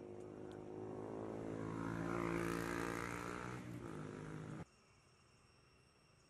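A motor vehicle engine running nearby, growing louder to a peak about two and a half seconds in, then cut off abruptly a little past four and a half seconds. Faint steady insect trilling follows.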